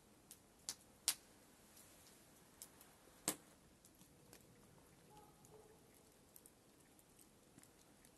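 Near silence with a few sharp, isolated clicks, the two loudest about a second and about three seconds in, and a very faint brief pitched sound a little after five seconds.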